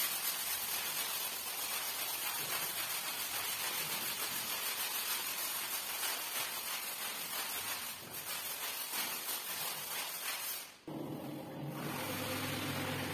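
Stiff push-broom bristles scrubbing a soapy, wet rug, a steady rough swishing. About eleven seconds in it breaks off, and a single-disc rotary floor scrubber's motor runs on with a steady hum.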